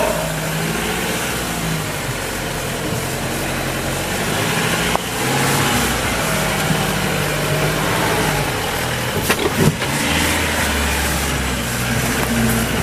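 Iveco EarthCruiser 4x4 truck's diesel engine running at low revs as it crawls through a deep rut, the revs shifting up and down slightly. A few sharp cracks come about nine seconds in.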